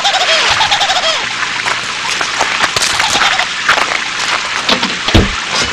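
Cartoon soundtrack: a dense splashing hiss with scattered clicks, crossed twice by a falling whistle-like glide, and a low thump near the end.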